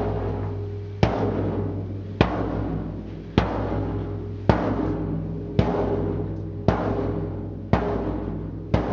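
Large frame drum struck at a steady pace, about once a second, each deep boom ringing on into the next. The strikes send sound waves that set a second frame drum's head facing it vibrating in sympathy.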